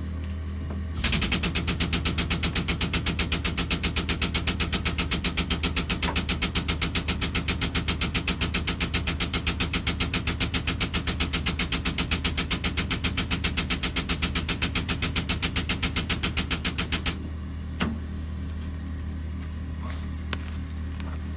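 Air-over-hydraulic jack pumping under air pressure, a rapid even rattle of about six pulses a second that runs for about sixteen seconds while lifting the bus, then stops abruptly, followed by a single click.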